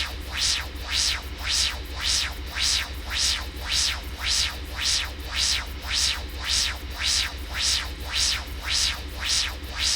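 Synthesized sci-fi spaceship warp drive reactor core sound effect: a steady deep hum under a rhythmic hissing pulse that repeats about twice a second.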